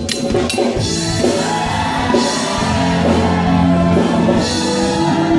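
Loud rock-style music with a drum kit and sustained notes.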